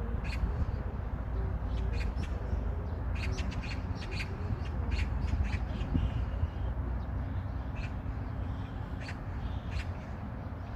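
Birds calling outdoors: many short, sharp, crow-like calls at irregular intervals, some in quick clusters, over a steady low rumble.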